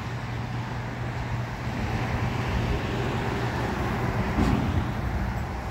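Steady low hum of the smoker's electric rotisserie drive turning the four meat racks, with a brief louder sound about four and a half seconds in.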